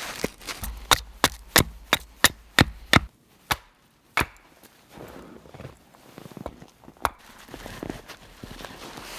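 A tool striking wood while a log is being worked: a quick run of seven sharp knocks, about three a second, then a few single knocks spaced out.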